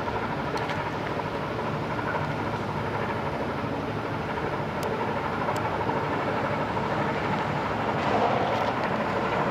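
Steady drone of passing ships' engines, with a few faint steady tones in it, growing a little louder near the end.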